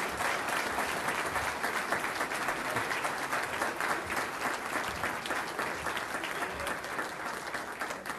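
Audience applauding, many hands clapping densely and steadily, thinning slightly near the end.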